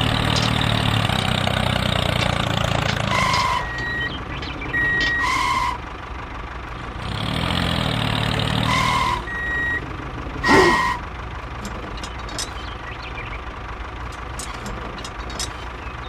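A vehicle engine running steadily, broken by a few short beeps like a reversing alarm. A quieter stretch follows, with some light clicks.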